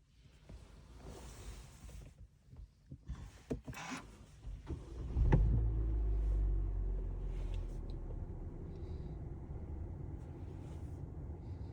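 2025 Kia K4's engine starting: after a few clicks and knocks, the engine fires about five seconds in with a brief loud rev-up, then settles into a steady idle.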